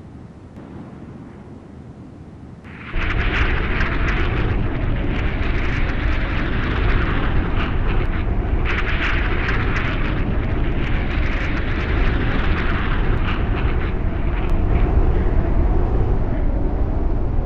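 Sound-effect roar of a hypersonic glide vehicle tearing through the atmosphere: a deep steady rumble with a crackling hiss over it, coming in suddenly about three seconds in after a faint hiss.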